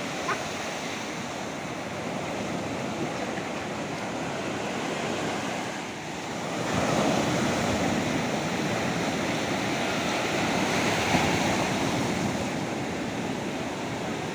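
Sea waves washing onto a beach: a steady rush of surf that swells up about halfway through and eases off again near the end.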